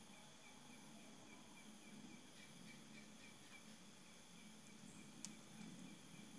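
Near silence with faint night insects chirping, a high pulse repeating about three times a second, and one sharp click about five seconds in.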